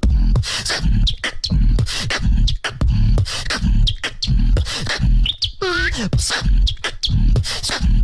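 A human beatboxer performing a beat into a microphone: deep bass kicks and sharp snare clicks with short high chirps mixed in, and one falling pitched glide about six seconds in.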